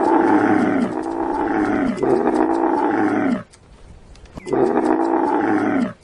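Dromedary camel calling: several long calls in a row, each falling in pitch, breaking off about three and a half seconds in and starting again a second later.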